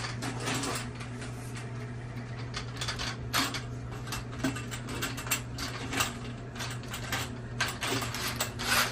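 Closet auger being collapsed by hand: its telescoping metal shaft sliding back to lock in place, with irregular clicks, rattles and scraping. A steady low hum lies underneath.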